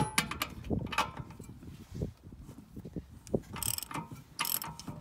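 Ratchet wrench with a 1 1/16-inch socket clicking in short runs, with sharp metal clinks as the socket is fitted. Two runs of ratcheting come near the end.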